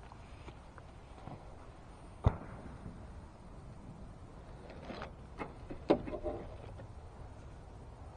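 A few sharp knocks and clicks from fishing tackle being handled, one about two seconds in and a cluster near six seconds, the last the loudest, over low wind noise on the microphone.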